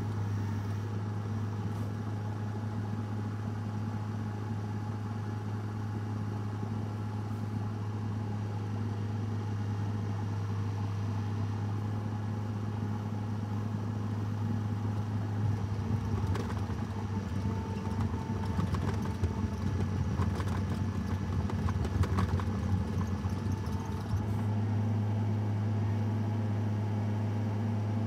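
An engine running steadily with a low hum. It is joined, from about halfway through for several seconds, by a run of irregular metallic knocks and clicks.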